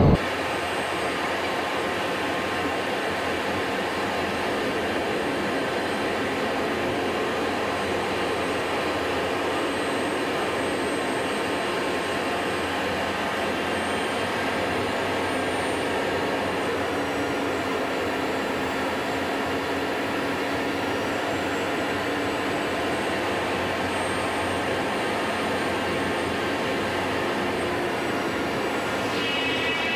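Cessna 208 Grand Caravan's PT6A turboprop running steadily, heard from inside the cockpit as an even rush with a faint high whine. A buzzing tone comes in just before the end.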